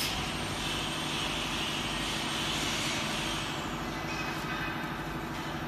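Plastic pellet packing machine running: a steady mechanical hum under a hiss that fades away over the first three or four seconds.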